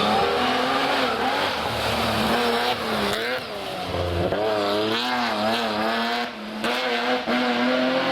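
Historic rally car engine at full effort on a special stage, its pitch repeatedly rising and dropping as the driver revs through gear changes and lifts for corners, climbing again near the end.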